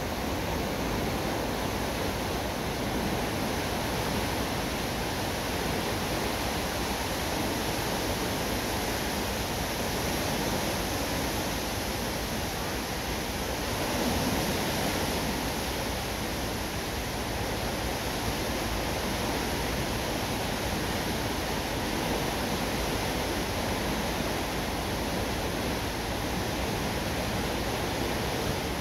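Water rushing through the sluices of a river lock's steel lower gates as the lock chamber empties, a steady, even rush of churning water.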